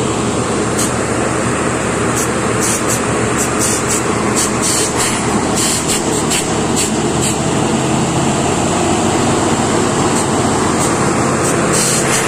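Borewell drilling rig's engine and air compressor running loud and steady. Short hisses come and go in the high end throughout.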